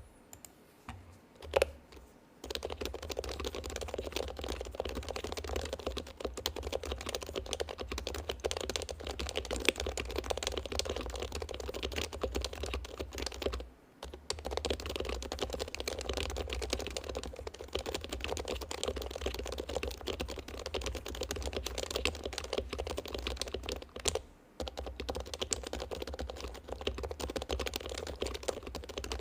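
Fast, continuous typing on a mechanical keyboard. A few single keystrokes come first, then a steady run of key clacks with two short pauses, about halfway through and again near the end.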